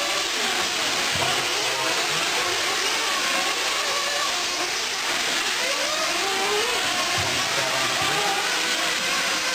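Several 1/8-scale nitro truggies' small two-stroke glow engines running at once, their overlapping whines rising and falling in pitch as they accelerate and back off.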